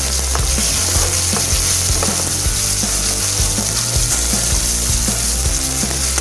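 Sliced onions sizzling in hot mustard oil in a frying pan, with a spatula scraping and knocking against the pan as they are stirred.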